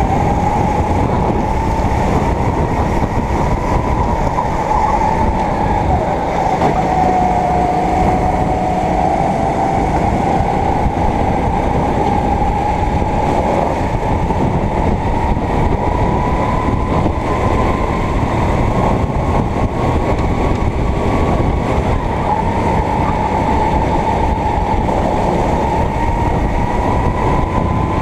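Racing kart engine running hard, its whine rising and falling in pitch as the kart accelerates and slows: it dips about eight seconds in and climbs again, dips once more past twenty seconds, then rises near the end.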